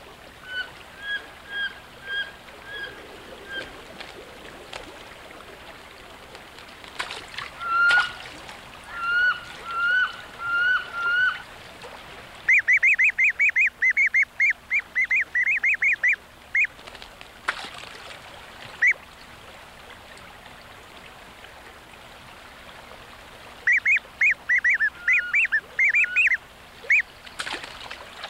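Wood ducks calling. There are series of evenly spaced, slightly rising calls, about two a second, near the start and again around eight seconds in. Then come fast runs of high peeping from the ducklings at the nest hole, twice.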